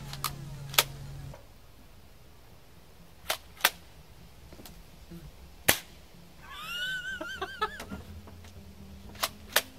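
Cheap toy pistol being fired, giving single sharp snaps spaced a second or more apart, about seven in all. A brief warbling squeak comes in the middle.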